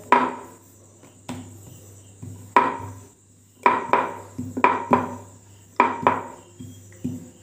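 Wooden rolling pin rolling out a ball of dough on a round wooden board, the pin and board knocking with each stroke: about nine sharp wooden knocks, each with a short ring, at an uneven pace.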